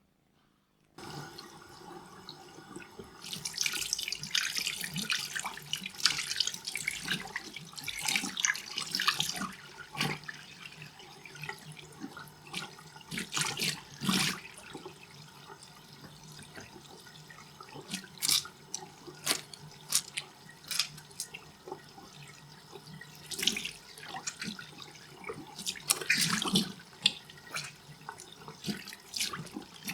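Water splashing and trickling, starting about a second in, densest over the next several seconds, then breaking into separate splashes and drips with a few busier stretches.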